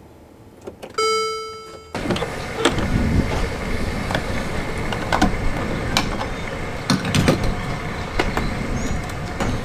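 Gas station forecourt noise with passing traffic, broken by sharp clicks and knocks as a fuel pump nozzle is lifted from the pump and fitted into a car's filler neck. About a second in, before this, a single bright ringing tone sounds and fades away over about a second.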